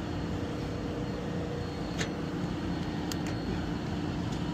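York package unit running with its newly installed blower assembly, a steady whir with a constant hum. A few sharp clicks about halfway through and near the end.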